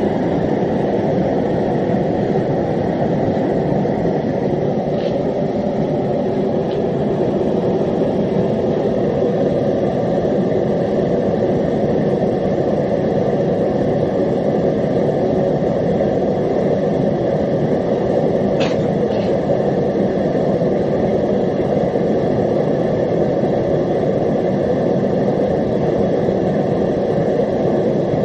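Gas forge burners firing steadily, a constant even rush of burning gas, with the forge at about 1040 degrees and still heating. A few faint ticks sound over it, around 5, 7 and 19 seconds in.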